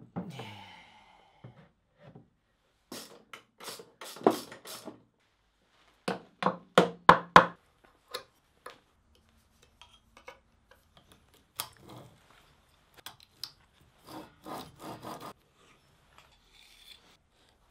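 Steel and brass parts of a hand-built rose engine being handled, slid and fitted together, with scrapes and clinks. The loudest part is a quick run of about six rubbing strokes about six seconds in.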